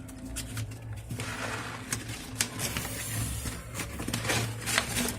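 Black chickpeas popping and crackling in a paper bag inside a running microwave: irregular sharp pops over the oven's steady low hum, the sign that the chana are roasting and bursting open.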